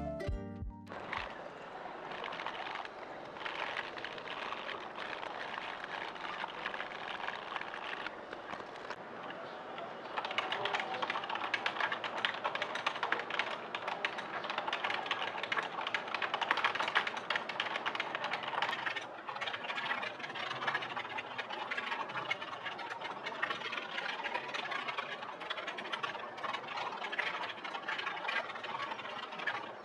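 Fast, continuous typing on a full-size non-mechanical keyboard: a dense clatter of plastic key presses, a little louder from about ten seconds in.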